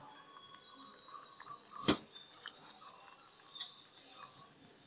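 Sweet chilli sauce bubbling in an aluminium pot over a gas burner: small scattered pops over a steady high hiss, with one sharp knock about two seconds in.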